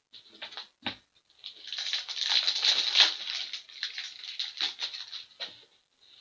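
Crinkling and rustling of plastic or foil card packaging as trading cards are handled and a pack is opened, with a few small clicks at the start and a dense crackle for several seconds.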